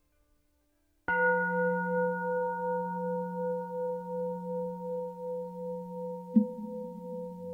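A singing bowl struck once about a second in, ringing on in several steady tones whose loudness wavers slowly as it decays, with a lighter second strike near the end.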